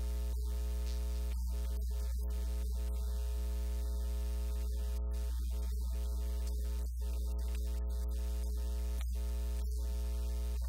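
Steady electrical mains hum: a loud, low buzz with many evenly spaced overtones at a constant level.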